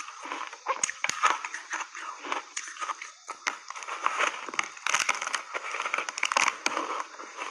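Close-up crunching and chewing of hard block ice dusted with milk powder: a rapid, irregular run of sharp cracks and crunches as the ice breaks between the teeth.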